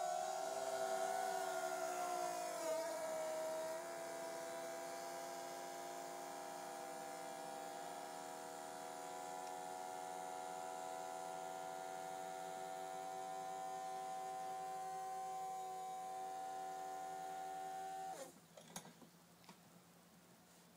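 Electric tortilla maker, lid pressed shut on a tortilla, giving off an eerie whine of several tones at once, like scary-movie music. The pitch wavers for the first few seconds and then holds steady. It cuts off when the lid is lifted, and a few light knocks follow.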